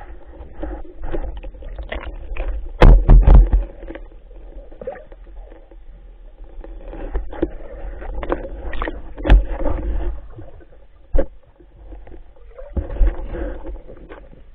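Muffled water sound picked up underwater through a camera housing: knocks and bumps against the housing with gurgling water movement over a low rumble, the loudest knocks coming in a quick cluster about three seconds in.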